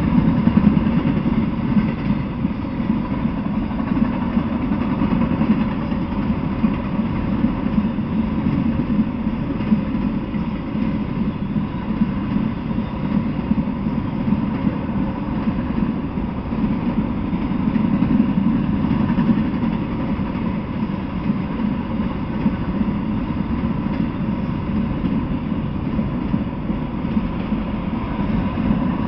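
Freight train of autorack cars rolling past, a steady rumble of steel wheels on rail that swells and eases slowly.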